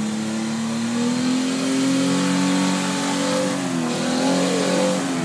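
Jeep Wrangler engine held at high revs under load as it climbs a rutted dirt hill, the pitch slowly rising then dipping about four seconds in; the revs fall away right at the end.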